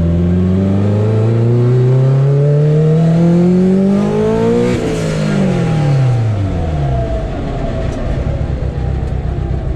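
Turbocharged 4G63 four-cylinder drag car with a dog box accelerating on a test drive: the engine note rises steadily for about five seconds, then falls away as it lets off and settles into a low rumble. The drivetrain sounds healthy, with only the typical dog box noise and no weird noises after the rear axle repair.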